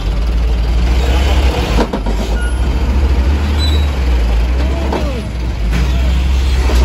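Loaded Hino dump truck's diesel engine pulling under load as the truck crawls forward out of soft ground, a deep steady drone. A couple of sharp knocks about two seconds in.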